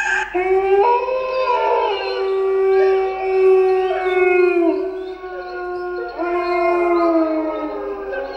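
Recorded howling of several wolves, a Halloween horror sound effect played back through a small loudspeaker by a DFPlayer Mini sound module when its PIR motion sensor detects movement. Long overlapping howls hold steady and slide down in pitch at their ends, fading out at the very end.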